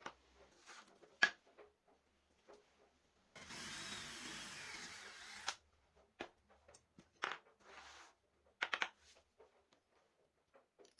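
A small power tool runs for about two seconds in the middle, amid scattered sharp clicks and knocks of tools and wood being handled.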